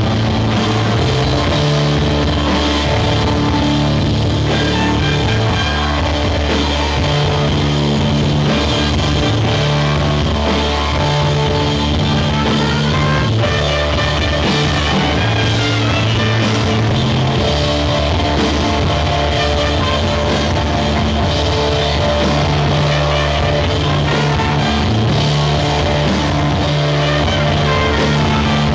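Live rock band playing loud and without a break: electric guitar and drum kit.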